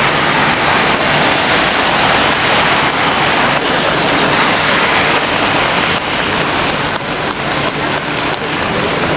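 Steady rain, an even hiss with faint scattered taps of drops, easing slightly about six seconds in.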